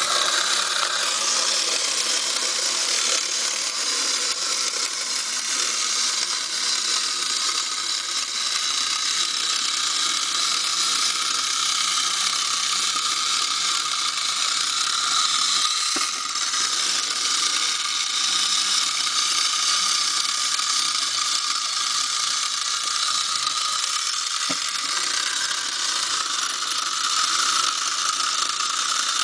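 Schylling Space Robot tin wind-up toy walking, its key-wound clockwork motor and spark mechanism running with a steady, dense mechanical whirring rattle.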